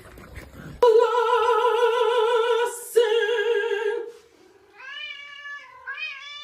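An animal's long, wavering cries: two loud drawn-out calls with a wobbling pitch, then quieter, shorter calls that rise and fall.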